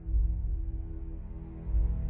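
Background music: a low chord held steady, with deep bass swells once at the start and again near the end.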